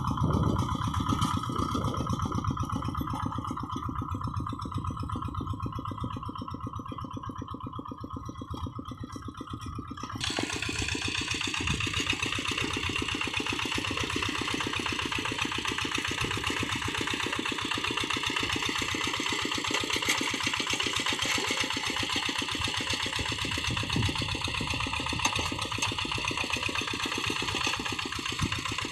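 Kubota single-cylinder diesel of a Quick G1000 hand tractor running steadily with a rapid, even beat while working a rice paddy. It is duller and quieter for the first third, then abruptly louder and fuller from about ten seconds in.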